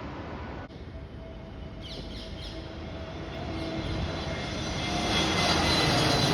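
Airplane engine noise from a passing aircraft, growing louder toward the end as it comes closer.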